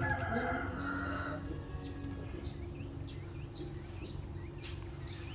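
Small birds chirping in a steady run of short, high chirps, about two to three a second, over a steady low hum.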